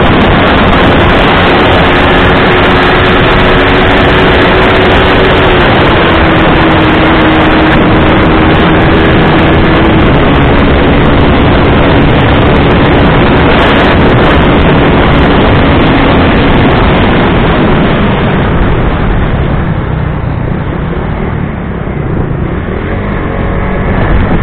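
Loud wind rush on the microphone over a 150 cc motorcycle engine running flat out at a steady high note. From a little past halfway the rush eases and the engine note fades as the bike slows.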